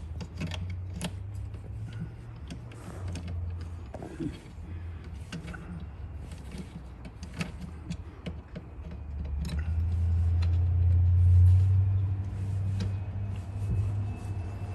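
Small clicks and taps of hand tools and hardware being handled while the charger's wires are fitted, over a steady low hum that swells for a few seconds about ten seconds in.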